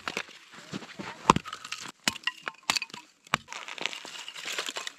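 Dead wood being chopped and broken up for a campfire: irregular sharp cracks and knocks, the loudest a little over a second in and again after about three seconds.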